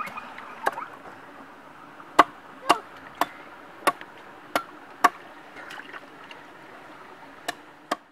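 Chopping: about nine sharp strikes at uneven intervals, mostly half a second to a second apart, over a faint steady background hiss.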